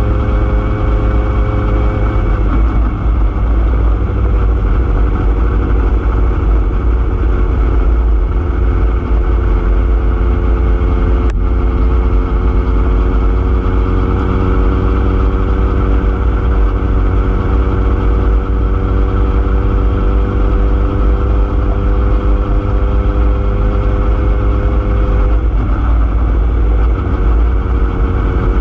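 A motor vehicle's engine running steadily while travelling along a road, with heavy wind rumble on the microphone. The engine note drops about two seconds in, rises slowly, then drops again near the end.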